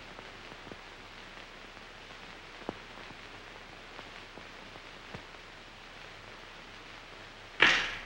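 Steady hiss of an old film soundtrack with a few faint crackles, then a sudden loud drum hit near the end.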